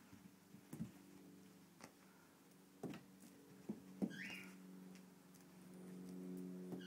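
Soft thumps and scuffs of a cat pouncing and scrambling on carpet, several separate knocks with the loudest about four seconds in, followed at once by a brief high squeak. A steady low hum runs underneath and grows louder near the end.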